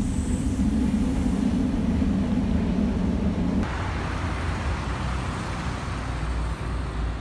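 Steady low rumble from inside a moving vehicle, which cuts off suddenly about halfway through. It is replaced by the hiss and hum of city street traffic.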